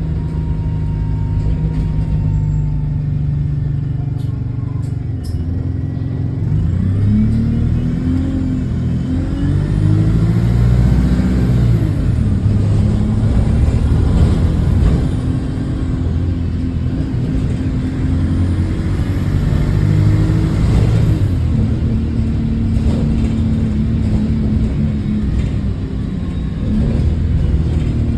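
Bus engine with an exhaust leak, heard from inside the bus. It runs steadily at first, then about six seconds in rises and falls in pitch as the bus pulls away and changes gear. It settles to a steady note and starts rising again near the end.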